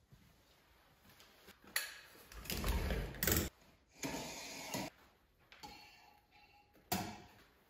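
Handling on a stainless-steel counter as fried mac and cheese pieces are set out on a tray: a few sharp knocks and clatters of metal, with stretches of scraping and rustling in between.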